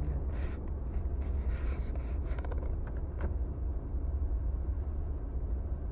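Steady low rumble of a car's engine and running gear heard from inside the cabin, with a few faint clicks between about two and three seconds in.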